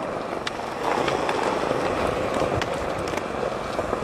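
Skateboard wheels rolling on smooth concrete: a steady rolling noise with a few light clicks.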